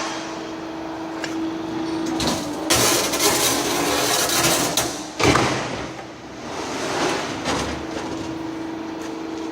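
Hydraulic swing beam shear with its pump humming steadily. About three seconds in comes a two-second rushing, clattering stretch that ends in a sharp clank, and a softer rush follows near eight seconds.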